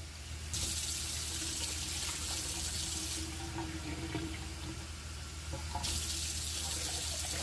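Kitchen tap running twice, water splashing into a cup or scoop: once from about half a second in to about three seconds, then again from about six seconds on. These are the two scoops of water being measured out for a pot of rice.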